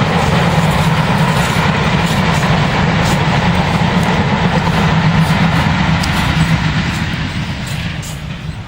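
Heavy freight train passing on a climb: a Class 70 diesel locomotive working hard under load, with the wagons rolling by. The sound is loud and steady, then fades near the end as the train draws away.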